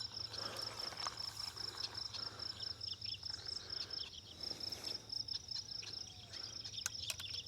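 Insect chirping in a rapid, even high-pitched pulse that runs on steadily, with a few faint sharp clicks near the end.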